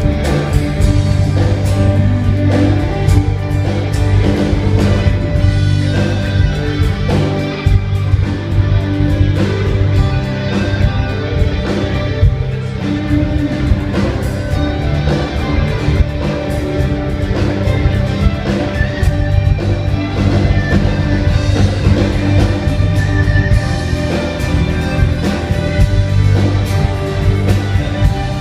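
Live church worship band playing, with electric and acoustic guitars over a steady bass line.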